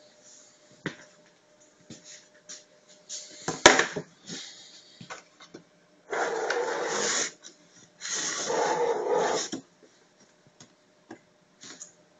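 Flatbed print table of a converted Epson WorkForce 30 printer being moved by hand on its rails: a sharp knock a few seconds in, then two sliding scrapes of a second or so each that start and stop abruptly.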